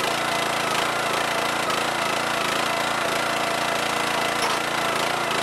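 Small engine of a YardMax hydraulic log splitter running steadily.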